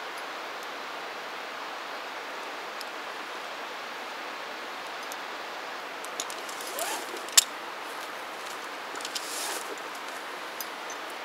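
A steady, even hiss, broken by a few faint clicks and one sharp click about seven seconds in, with a short rising squeak just before it.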